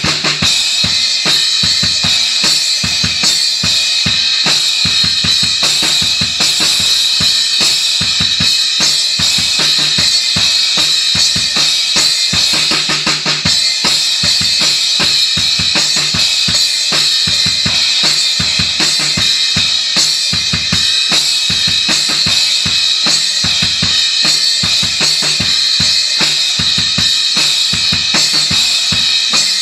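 Acoustic drum kit played hard and continuously in a rock groove: bass drum and snare strokes under a constant wash of Zildjian crash and ride cymbals.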